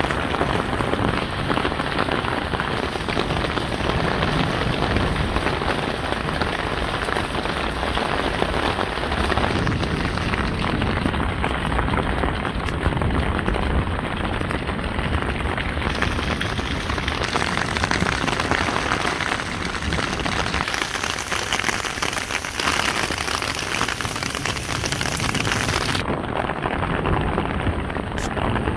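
Heavy downpour pelting a stone-paved street and pavements: a dense, steady hiss of rain.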